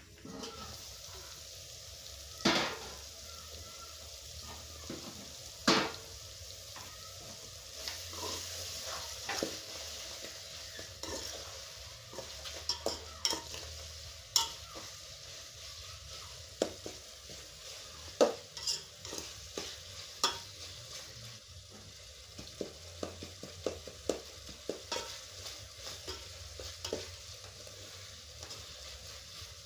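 Food sizzling in hot oil in a metal cooking pot while a metal spoon stirs it, scraping and knocking against the sides of the pot in sharp clicks, a few of them much louder.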